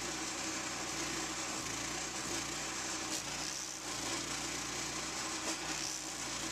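Forest King stump grinder running steadily under load, its engine driving the cutting wheel as it grinds into a black walnut stump, with a hiss of wood chips that swells twice, about halfway through and near the end.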